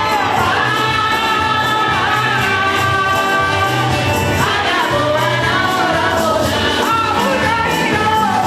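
A choir and congregation singing a gospel hymn in several voices over a steady percussion beat.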